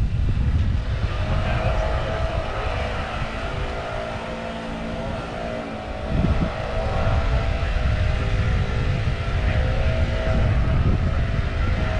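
A steady engine-like hum with wind buffeting the microphone.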